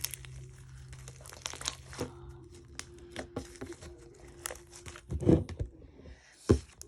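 Slime being squeezed and stretched by hand, giving dense, irregular crackling and popping. Two louder thumps come in the second half.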